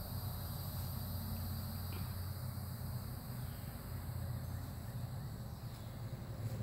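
Outdoor summer woodland ambience: a steady high drone of insects over a constant low rumble.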